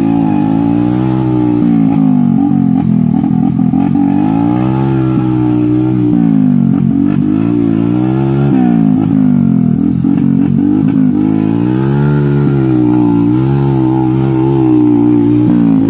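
Small dirt bike engine revving up and down over and over as the rider picks through a rutted dirt trail, its pitch rising and falling every second or two.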